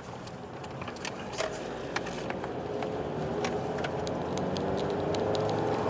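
Car engine and tyre noise heard from inside the cabin while driving. The engine note rises gradually through the second half as the car speeds up, with scattered light clicks and ticks over it.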